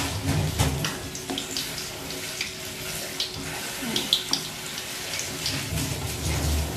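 Wooden spatula stirring a pot of coconut-milk tom yum soup: the liquid sloshes, and the spatula knocks lightly against the enamel pot, with a few low thumps about half a second in and near the end.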